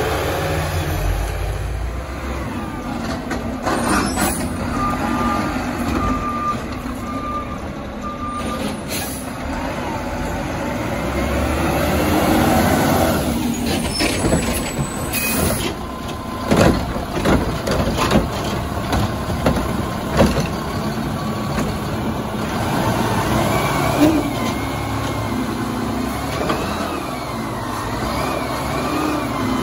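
Mack garbage truck with a McNeilus Meridian front-loader body and Curotto Can cart-tipper at work. Its diesel engine runs under a hiss of air brakes, with a run of short even beeps early on and sharp knocks midway as the cart is tipped into the Curotto Can. Near the end the engine revs with a wavering hydraulic whine as the arms lift the can overhead.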